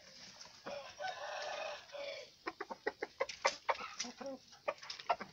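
Chickens calling: a drawn-out rooster call about a second in, then a quick run of short, sharp clucks.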